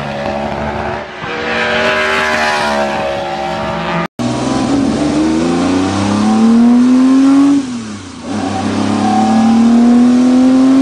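BRM V16 racing car's engine at high revs on track, a dense, buzzing note with a brief dip about a second in. After a sudden break about four seconds in, another racing engine accelerates hard: its pitch climbs, falls at a gear change, then climbs again.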